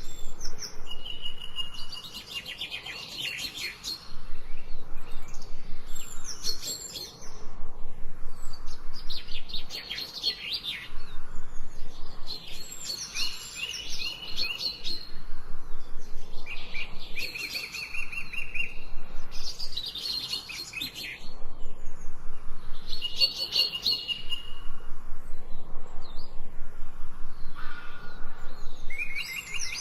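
Songbird singing in repeated high phrases of rapid chirps and trills, a new phrase every few seconds with short pauses between.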